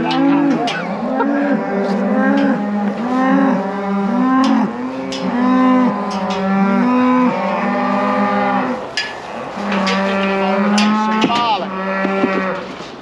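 Several calves bawling loudly, short arched calls overlapping one after another with hardly a break.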